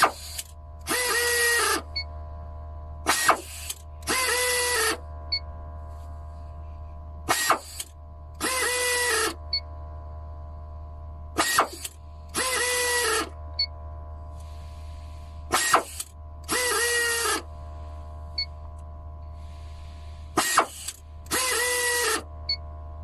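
Open-end industrial air ratchet wrench with torque control, run about five times. Each cycle starts with a short sharp burst, then a run of about a second that drops briefly in pitch and cuts off, as the full-auto shut-off trips. A steady hum lies under it throughout.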